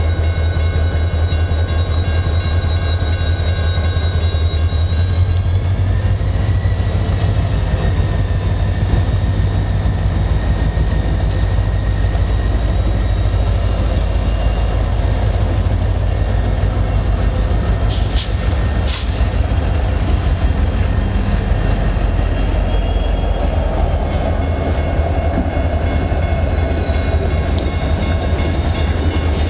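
Canadian National freight train passing close by: the diesel locomotives' engines give a deep rumble, then the freight cars roll past. Over it runs a steady high squeal from the wheels that rises in pitch a few seconds in and falls back near the end, with two short sharp squeals around the middle.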